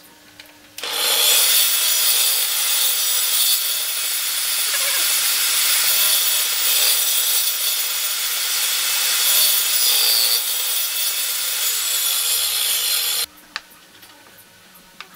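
Table saw running and cutting through a wooden block pushed on a crosscut sled: a loud, steady saw noise that starts about a second in and cuts off suddenly near the end.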